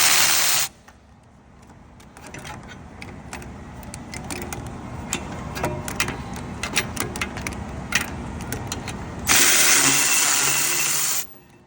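Cordless battery ratchet running in two bursts, one under a second at the start and one of about two seconds near the end, spinning out the 18 mm caliper bracket bolts. In between, scattered light metal clicks and clinks.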